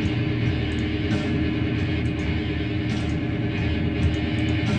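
Rock music playing, a held, steady passage without vocals.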